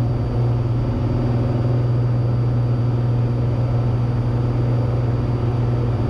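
Cessna 182T's Lycoming IO-540 six-cylinder engine and propeller droning steadily at cruise power in level flight: a deep, even hum.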